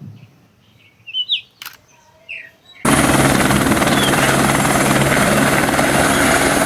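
Helicopter sound, a steady loud rotor-and-engine drone that starts suddenly about three seconds in, after a few faint bird chirps and a click.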